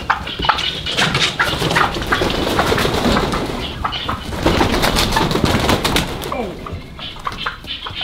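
Young turkeys calling and flapping their wings in a run of short sharp flaps and scuffles as they are chased around a pen to be caught by hand.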